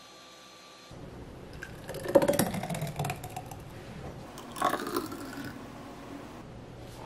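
Thick kiwi-and-cabbage smoothie poured from a blender jar into two tall glass cups: one pour about two seconds in, falling in pitch, and a second near the middle. Before that, a blender's faint steady whirr cuts off about a second in.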